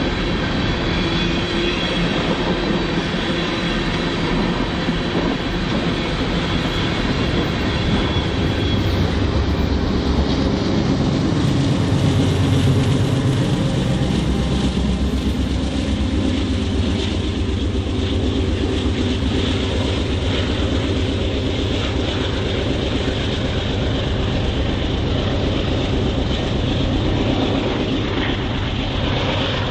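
Freight train cars rolling past, a steady rumble and clatter of steel wheels on rail that swells a little about twelve seconds in. A thin high wheel squeal fades out about nine seconds in.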